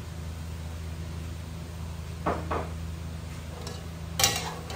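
Metal spoon knocking against a metal cooking pan as stirring of the noodles begins, a sharp clank with a brief ring near the end, after two lighter knocks a little past halfway. A steady low hum runs underneath.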